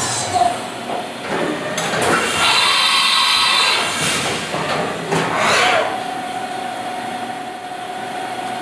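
5-axis CNC machining centre running inside its enclosure after a cut: a steady hiss with several whooshing sweeps as the machine moves, then a steady machine whine from about five seconds in.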